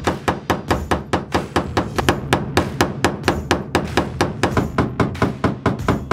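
Hammer rapidly striking a chisel to drive a fuel pump lock ring loose, the sharp metal strikes coming in a steady rhythm of about five a second.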